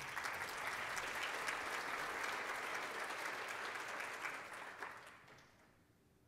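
Audience applauding a finished talk: a few seconds of steady clapping that dies away over the last second or so.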